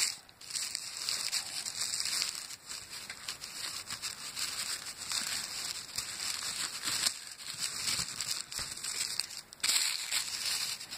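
Butterfly-printed wrapping paper crinkling and rustling in the hand as a lace-tied parcel is unwrapped.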